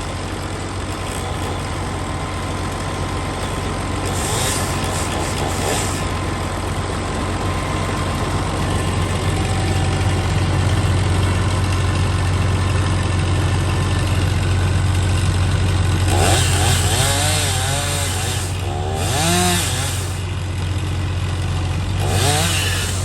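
Engine machinery from tree-removal work running steadily with a constant low drone, with a few short louder bursts of wavering, revving pitch near the end.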